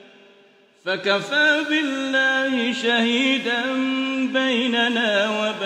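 A man reciting the Qur'an in melodic tajwid style: after a brief near-silent pause, one long ornamented chanted line starts about a second in, its held notes bending up and down.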